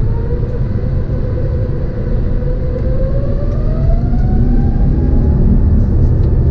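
Airbus A350-900's Rolls-Royce Trent XWB engines spooling up for the take-off roll, heard from inside the cabin: a deep, steady rumble with a whine that rises slowly in pitch as the aircraft speeds up.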